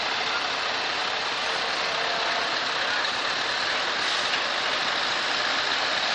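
Heavy truck tractor units driving slowly, a steady noise of diesel engines and tyres on the road.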